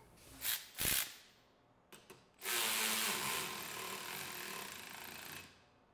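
Milwaukee M12 Fuel high-speed cordless ratchet running for about three seconds, fading as it struggles and then stopping. On a battery at about two bars it lacks the torque to turn a new half-inch nylon lock nut. Two short knocks come first, about half a second and a second in.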